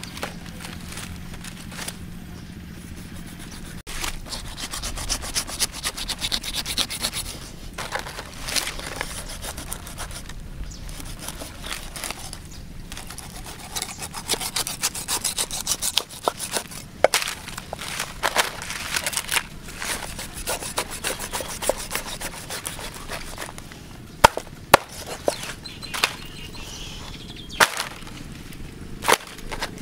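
A cleaver scraping and cutting through a stingray's skin and flesh on a round wooden chopping block, in quick repeated rasping strokes. A few sharp knocks of the blade against the wood stand out in the second half.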